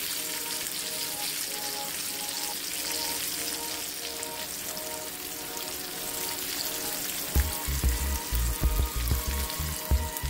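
Flour-coated chicken pieces frying in hot oil in a pan, a steady sizzle. Background music plays over it, and a heavy, low, thumping beat comes in about seven seconds in.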